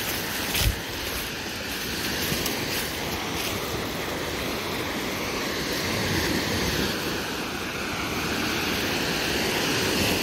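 Steady rush of lake waves washing in, mixed with wind buffeting the microphone. A short thump less than a second in.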